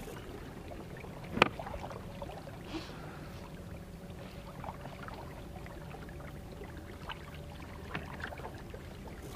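Small electric trolling motor on a kayak running with a steady low hum and a faint steady whine, the kayak moving through calm water. One sharp click about a second and a half in.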